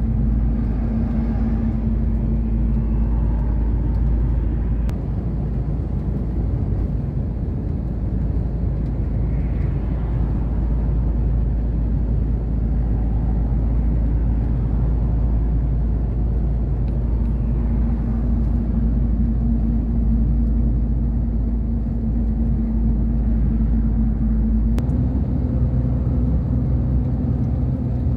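Heavy truck driving at highway speed, heard from inside the cab: a steady engine drone with road rumble, its hum shifting slightly near the end.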